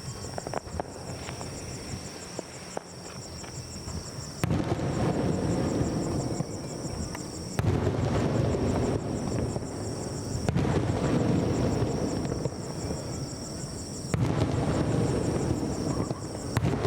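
Aerial firework shells bursting: five sharp bangs a few seconds apart, starting about four seconds in, each followed by several seconds of dense crackle. Crickets chirp steadily in the background.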